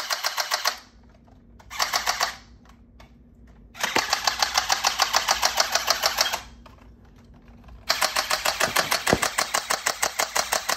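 Battery-powered gel blaster pistol firing in full-auto bursts, its gearbox cycling in a rapid, even clatter. There are four bursts: a short one at about 2 s, two long ones of two to three seconds each from about 4 s and 8 s, and the end of one just as the sound begins.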